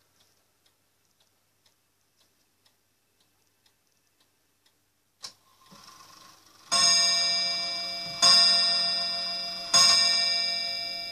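Lincoln 31-day pendulum wall clock ticking about twice a second. Near the middle its striking train releases with a click and a short whir, and then it strikes the hour three times for three o'clock. The strikes are loud ringing gong notes about a second and a half apart, and each one rings on and fades slowly.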